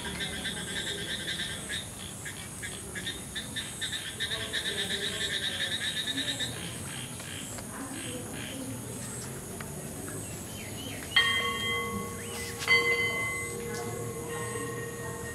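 Outdoor ambience with rapid pulsed chirping for about the first six seconds. Then a horn sounds twice, about a second and a half apart, its steady tone lingering toward the end.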